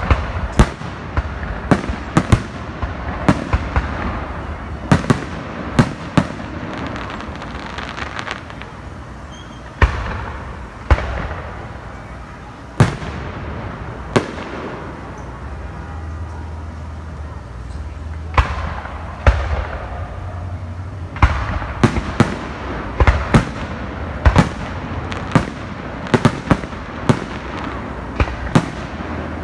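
Aerial fireworks shells bursting overhead: a string of sharp bangs, each trailing off in an echo. They come every second or so at first, thin out in the middle, then pile up in quick succession over the last ten seconds.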